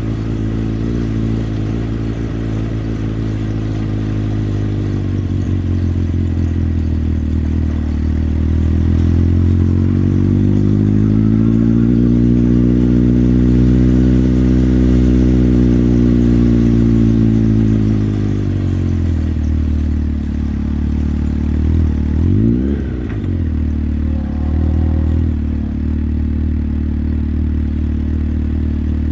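Motorcycle engine running under way: it starts low and steady, its pitch climbs slowly a third of the way in and eases back down, then a quick blip of revs comes a little past two-thirds through before it settles to low steady running again.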